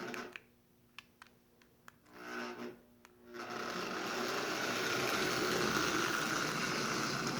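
A Lionel No. 50 gang car's motor and wheels running on the track. The sound drops out about half a second in, leaving a few faint clicks and a short hum. At about three and a half seconds it starts up again and runs steadily, growing slightly louder.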